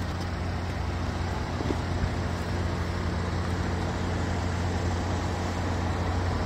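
A vehicle engine idling: a steady low hum that does not change, under a constant hiss of outdoor noise.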